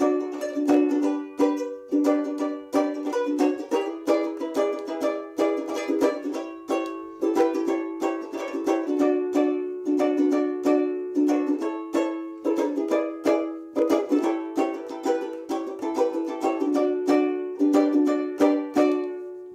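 A John Grey and Sons banjo ukulele, which the owner dates to the late 1940s to mid 1950s, strummed in a steady rhythm with bright, ringing chords. The last chord is left to ring and fade near the end.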